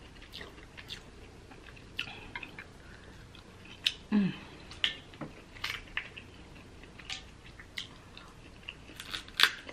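Close-up eating of Dungeness crab: scattered sharp clicks and crackles of shell being picked apart by hand, with wet chewing. A short low hum about four seconds in.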